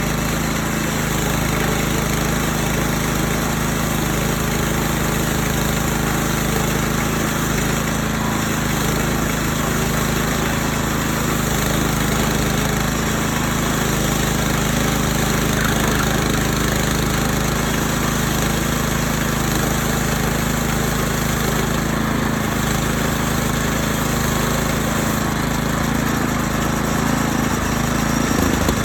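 Gasoline engine of a portable band sawmill running steadily with a constant low hum and a wash of saw noise.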